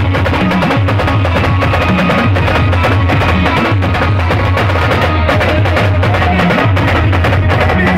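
Processional drum band of large stick-beaten drums playing loud and fast, a dense stream of rapid strokes over a deep, steady low drum beat.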